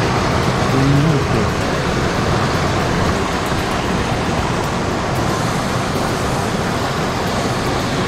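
Steady close rushing of a swollen mountain stream flowing over stones and gravel.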